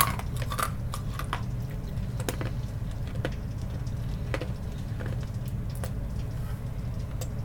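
Close-up mouth sounds of someone chewing and sucking on candy: soft wet squishing with small clicks about once a second, over a steady low hum.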